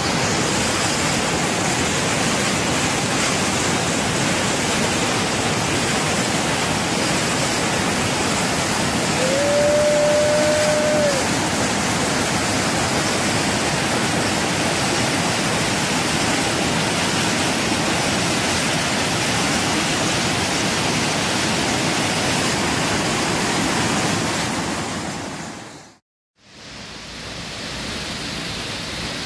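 Loud, steady rush of a flooded river, muddy water pouring through a rocky gorge. About nine seconds in, a steady whistle-like tone sounds for about two seconds. Near the end the sound cuts out briefly, then a quieter steady rush of a tall waterfall pouring off a cliff into floodwater.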